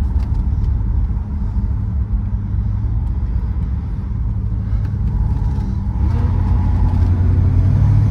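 A 1966 Plymouth Belvedere's 383 big-block V8 running while the car is driven, with road noise; the engine grows louder about six seconds in as it is given more throttle.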